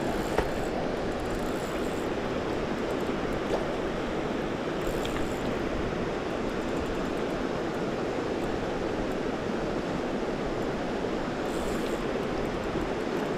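Steady rush of a fast-flowing river, with a couple of faint clicks about half a second and three and a half seconds in.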